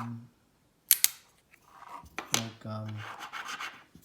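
A small magnetic stud marker rubbed and slid across a surface, giving a scratchy rubbing noise in the second half, with a sharp click about a second in. A man's short hummed filler sounds come at the start and in the middle.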